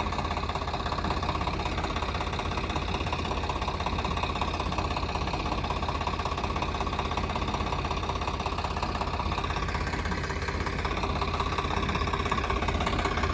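Swaraj tractor's diesel engine idling steadily, with an even, rapid beat.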